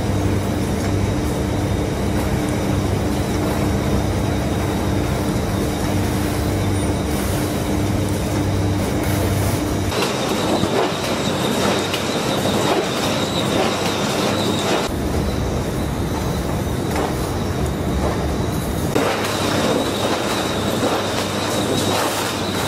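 Tinplate sheet coating line running: the wicket conveyor's wire racks and sheet-feeding rollers make a continuous metallic clatter over machine hum. About ten seconds in the sound switches from a steady low hum to denser clattering with a thin high whine, which comes and goes.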